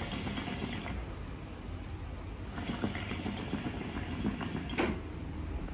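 Hookah water bubbling in the base as smoke is pulled through the hose, in two stretches: a short one at the start and a longer one from about halfway, ending in a louder gurgle. The hookah has just been charged with coconut coals on an Egyptian-style clay bowl.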